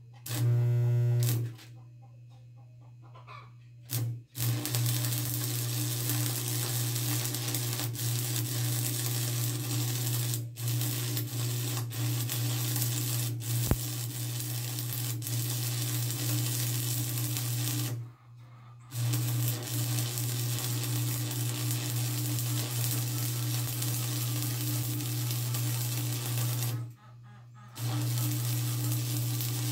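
A steady crackling hiss over a low electrical hum, in long runs that stop briefly twice.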